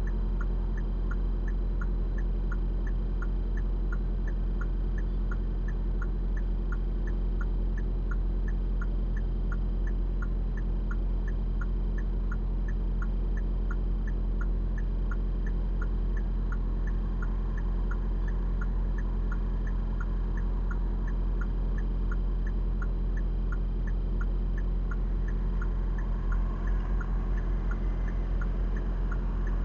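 A car's turn-signal or hazard-light indicator ticking evenly, about one and a half ticks a second, over the steady low rumble of the idling car heard from inside the cabin.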